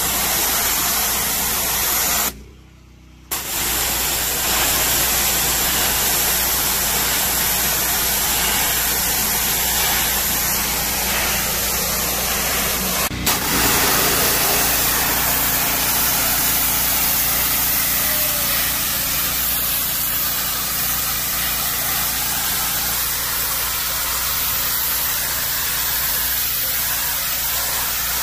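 Maximum 4200 PSI gas pressure washer running, its 420cc OHV engine humming under the loud, steady hiss of the high-pressure jet blasting concrete. The spray drops away for about a second near the start, leaving the engine alone.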